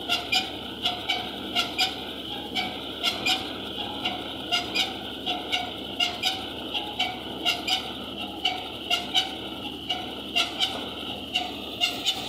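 Tractor-driven wheat thresher running steadily, a continuous mechanical noise with a sharp, slightly squeaky clack repeating unevenly two to three times a second.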